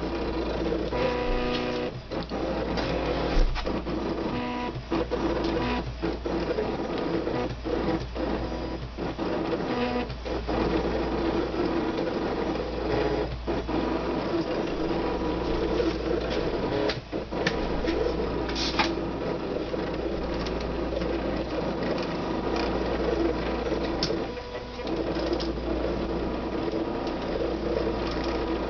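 Cricut Expression electronic die-cutting machine cutting paper on its mat. Its motors whir and buzz steadily, with several brief pauses and sharp clicks. The multi-cut setting is on, so it is going over the same cut again.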